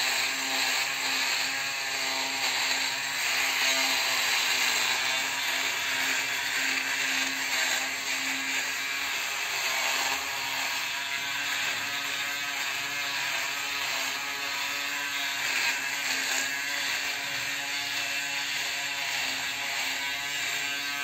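Braun Series 3 ProSkin 3010s electric foil shaver running steadily with a constant buzz while cutting two-day stubble on the cheek and upper lip.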